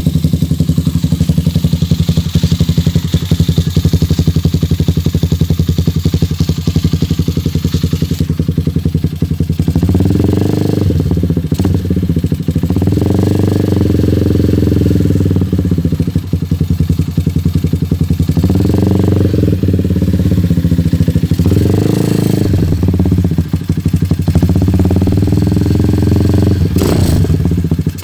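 Motorcycle fitted with a 51 mm SC Project exhaust canister, idling with a steady pulsing exhaust note, then revved about five times from about ten seconds in, each rev rising, holding briefly and falling back to idle.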